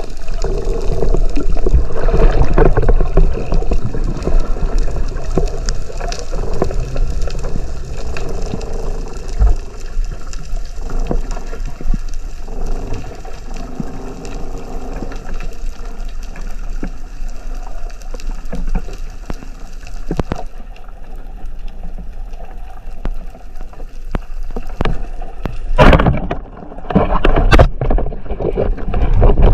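Underwater water noise picked up by a camera mounted on a speargun during a breath-hold dive: a continuous, muffled gurgling rush. Near the end come two loud bursts of noise as the diver's gloved hand and wetsuit arm move right up against the camera.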